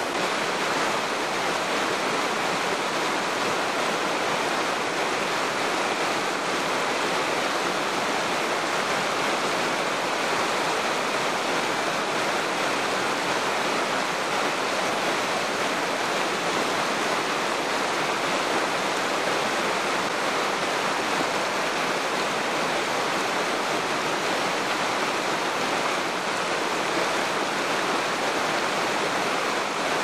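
Rushing water of a mountain stream and waterfall, a steady even rush with no other sounds.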